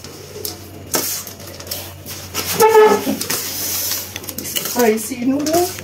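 Metal forks clinking and scraping against a steel plate as a heap of noodles is lifted and tossed, with short wordless vocal sounds about halfway through and again near the end.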